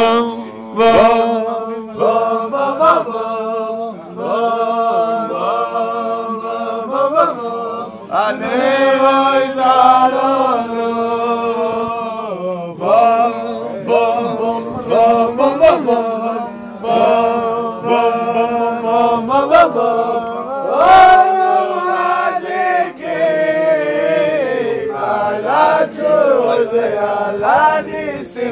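A group of men singing a Hanukkah song together without accompaniment, holding long notes.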